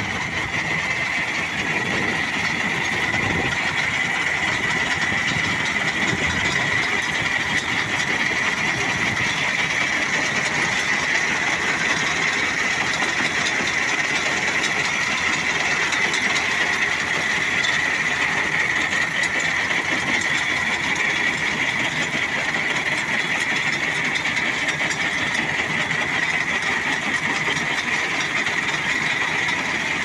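Tractor engine running while a trailed corn harvester chops dry corn stalks, with a steady high whine over the rumble of the machinery.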